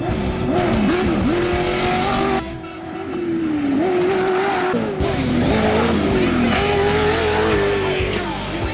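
Desert off-road race vehicles' engines running at high revs, their pitch climbing and dropping repeatedly as they accelerate and ease off through the road-gap jump. The sound breaks off sharply about two and a half seconds in and again about five seconds in.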